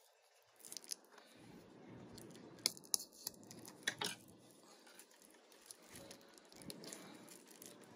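Faint handling noise of plastic packaging as a plastic DVD case is worked out of its cardboard sleeve, with a light crinkle of wrap and a few sharp clicks and taps.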